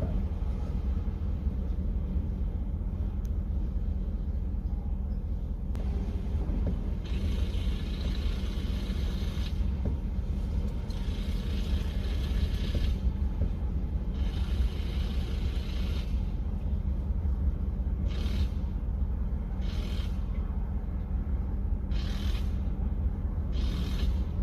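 Compressed air hissing through an air chuck as the spare tyre is inflated, in bursts: three longer pushes of about two seconds each, then four short top-ups near the end. A steady low rumble runs underneath.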